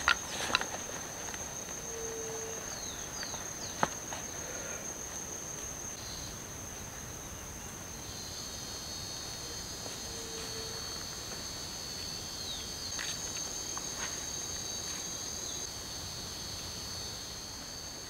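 Insects trilling steadily at a high pitch, a fast pulsing buzz, with a second, slightly lower trill joining about 8 s in and dropping out near the end. A few sharp knocks come right at the start.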